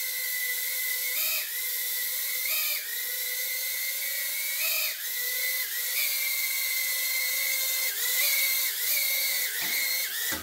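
Makerfire Armor Blue Bee 65mm micro quadcopter's motors and ducted propellers whining steadily in flight. The pitch dips briefly several times as the throttle is eased, and the sound cuts off as the drone lands.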